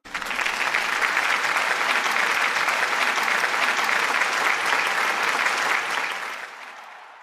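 Audience applauding, starting sharply and holding steady, then dying away over the last second or so.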